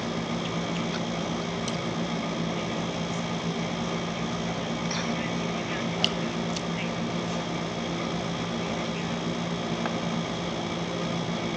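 Window air conditioner running with a steady hum, with a few small clicks over it, the sharpest about six seconds in.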